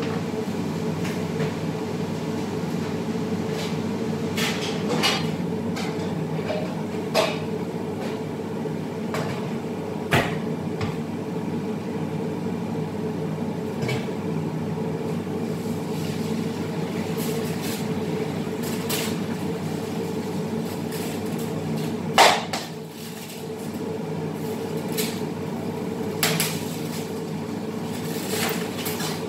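Steady hum of a kitchen extractor fan, with scattered clatters and knocks of pots and utensils; one knock, a little past the middle, is louder than the rest.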